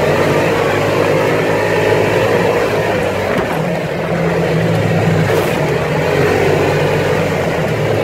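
Side-by-side UTV's engine running steadily under throttle, heard from the driver's seat, its pitch rising and falling as the throttle changes.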